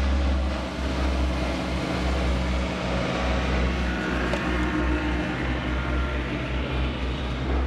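Grumman OV-1 Mohawk's twin Lycoming T53 turboprop engines and propellers droning steadily as the aircraft flies past, a low rumble with a propeller hum over it.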